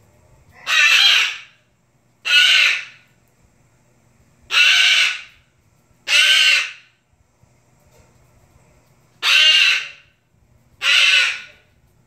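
White cockatoo screeching: six loud calls, each under a second long, coming in three pairs a few seconds apart.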